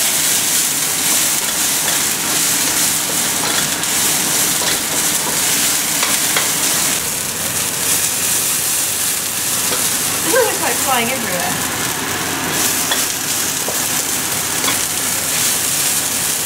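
Beaten egg with soy sauce sizzling and frying in a smoking-hot wok as it scrambles: a steady, even hiss.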